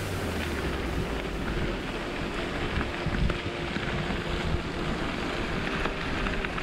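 Wind rushing over the microphone of a bike-mounted action camera as a gravel bike rolls along a gravel track, with a steady low rumble and small crackles from the tyres on the stones.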